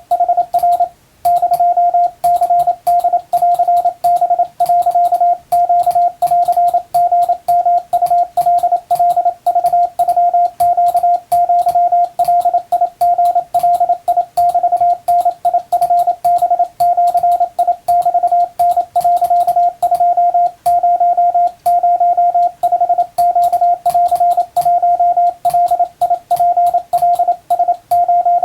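Morse code sidetone sending Wabun (Japanese-language) Morse in plain text: a single steady-pitched beep keyed on and off in fast, continuous dots and dashes. There is a short pause about a second in.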